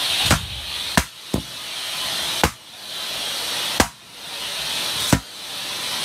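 Latex balloons popping one after another as a shop vac nozzle sucks them in: six sharp pops, one of them weaker, over the hiss of the vacuum's suction, which grows louder before each pop and drops away right after it.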